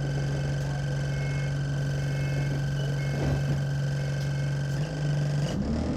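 Diesel engine of an Enviro 200 Dart single-deck bus idling with a steady hum, with faint short beeps about once a second. Near the end the engine note rises as the bus pulls away.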